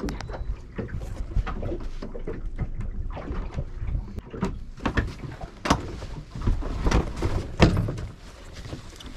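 A string of knocks and clunks from things being handled and set down aboard a small boat, with two sharper knocks in the second half, over a steady low rumble.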